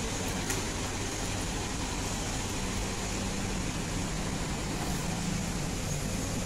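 A machine running steadily with a hiss, its low hum growing stronger about halfway through.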